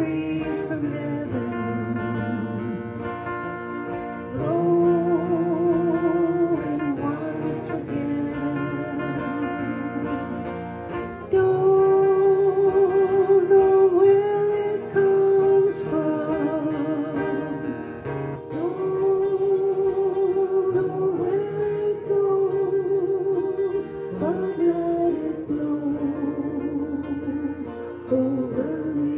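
A man singing a song with acoustic guitar and electric guitar accompaniment, holding long notes with a slight vibrato. The music gets louder about eleven seconds in.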